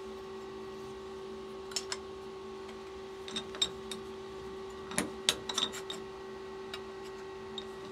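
Light metal clicks and clinks as a steel blade blank is set into the steel jaws of a machine vise and pressed down. The clicks come scattered, with the loudest cluster about five seconds in, over a steady machine hum.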